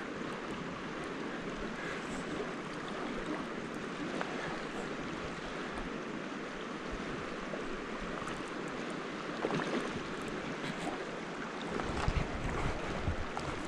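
Steady rush of a high, fast-flowing creek, with low wind buffeting on the microphone near the end.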